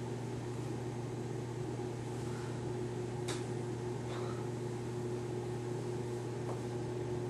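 Steady low electrical hum of room background noise, with a faint sharp click about three seconds in.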